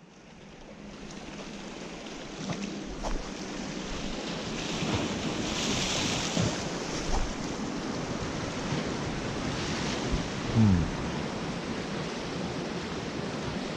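Sea waves surging against a rocky shore, with wind noise on the microphone; the wash builds over the first few seconds and then holds steady.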